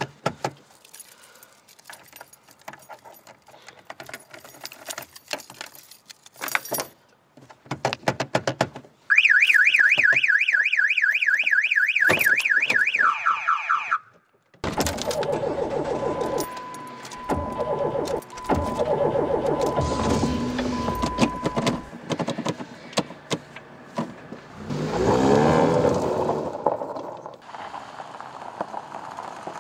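Scattered clicks and rattles, then a loud electronic alarm warbling rapidly up and down for about five seconds, like a car alarm, which cuts off abruptly. A steady noisy rumble follows, swelling briefly near the end.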